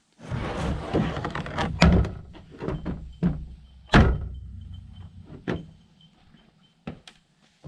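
Wooden boards knocking and thudding as they are handled and loaded, a run of sharp knocks with the loudest about two and four seconds in and fewer, quieter ones near the end. A faint steady high tone sounds through the middle.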